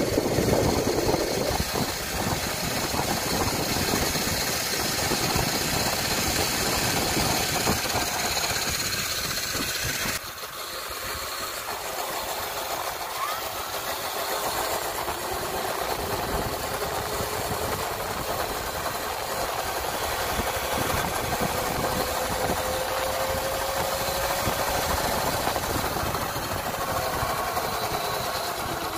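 Steady vehicle noise while riding, with wind rumbling on the microphone. The sound drops abruptly about ten seconds in, and later a faint whine rises slowly.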